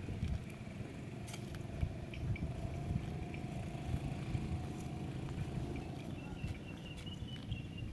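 A cow grazing close up: steady rough tearing and chewing of grass with small clicks.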